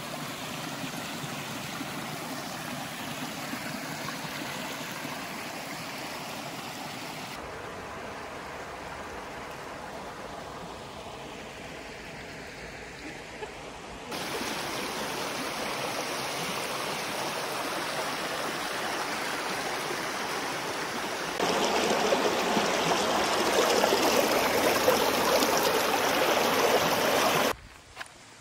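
Small forest brook running over stones and logs: a steady rush of flowing water, heard in several takes that change abruptly, the loudest last. The rushing stops suddenly about a second before the end.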